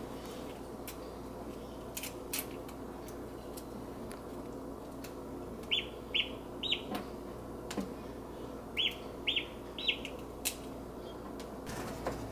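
Duckling peeping from inside its pipped egg: three short high peeps about halfway through, then three more a few seconds later. Faint scattered clicks come between them.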